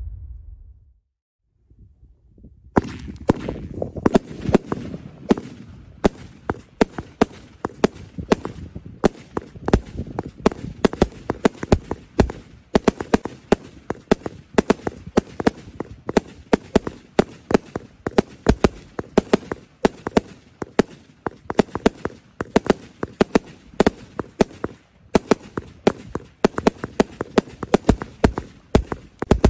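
A 100-shot, 20 mm calibre consumer fireworks cake firing in rapid succession: a continuous stream of sharp pops and bangs, several a second. It starts about three seconds in, with a brief pause near the end.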